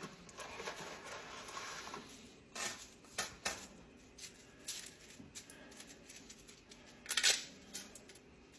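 Dry fettuccine noodles snapped by hand into short pieces: a scattered series of sharp cracks, about seven, one of them a little longer near the end.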